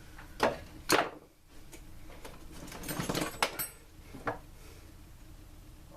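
Hand tools and small engine parts knocking and clicking during the teardown of a backpack blower's carburetor: two sharp knocks in the first second, a scraping, rustling stretch with clicks around the middle, and one more knock near the end.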